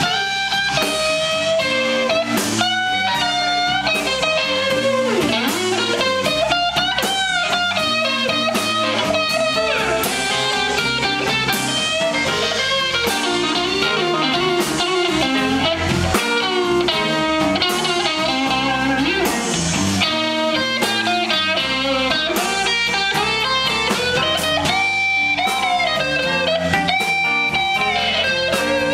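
Live blues band playing, led by an electric guitar solo on a Stratocaster-style guitar, with bent and sustained notes over the bass and drums.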